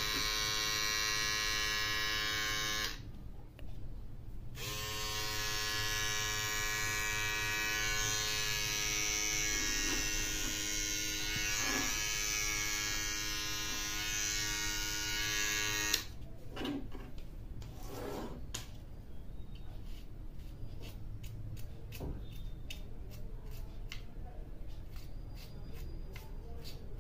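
A Philips BT1232/15 battery beard trimmer runs with a steady electric buzz while trimming forearm hair. It stops briefly about 3 s in, starts again a second and a half later, and cuts off about 16 s in. Light clicks and taps of handling follow.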